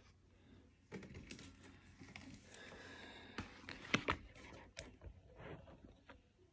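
Scattered light taps and clicks with a short rustle between them, the sound of objects and paper being handled close to the microphone, sharpest a little past the middle.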